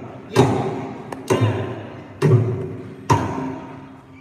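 Mridangam played in slow, widely spaced strokes: four ringing strokes about a second apart, each a deep bass boom mixed with a pitched ring from the tuned head that dies away before the next.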